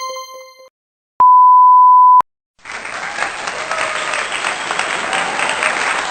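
A sequence of comedy sound effects: a short chime-like ding that fades within a second, then a one-second pure censor bleep, then a crowd applauding from about two and a half seconds in.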